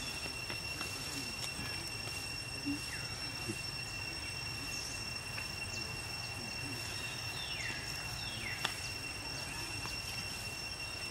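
Steady high-pitched insect drone with a constant low rumble beneath it, broken by a few short, high falling chirps scattered through.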